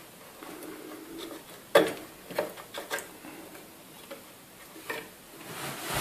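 A few light clicks and knocks of hands handling a desktop RAM stick and its slot clips as the released module is lifted out of the motherboard slot, with one sharper click a little under two seconds in.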